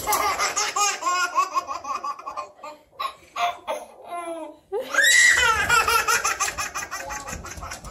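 Toddler laughing hard in quick repeated bursts, breaking into a higher-pitched laugh about five seconds in.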